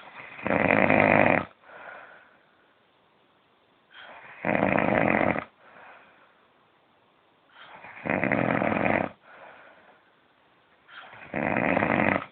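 A man snoring in his sleep: four loud snores, one about every three and a half seconds, each lasting about a second and followed by a quieter breath out.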